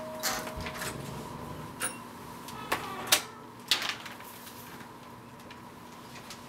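A house's front door being unlatched and opened: a handful of sharp clicks and knocks from the door hardware in the first four seconds, the loudest around three to four seconds in.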